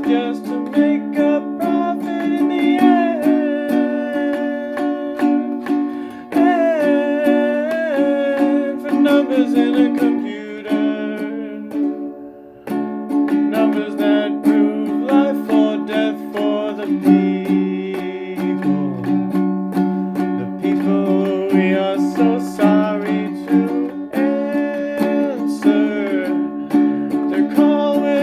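Strummed acoustic string instrument playing steady chords under a wordless sung melody, which wavers and slides in pitch. The music drops away briefly about twelve seconds in, then picks up again.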